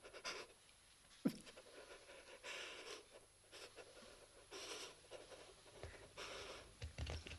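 A badly wounded man's faint, laboured gasping breaths, one about every two seconds, with a single sharp click about a second in.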